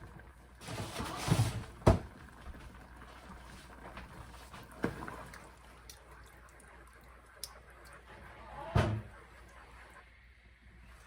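Knocks and thuds of things being handled. A short noisy clatter about a second in ends in a sharp knock, a lighter knock follows near five seconds, and a duller thud comes near nine seconds.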